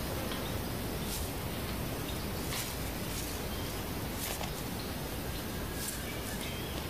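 Steady outdoor background hiss with four faint, brief dry crackles spread through it: a Bonin white-eye tugging dry grass from a nest.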